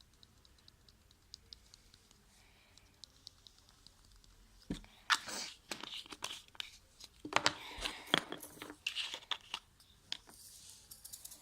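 Slime being stirred and worked with glitter in it: irregular wet squishing and crackling in bursts from about five seconds in, after a quieter stretch with only faint clicks.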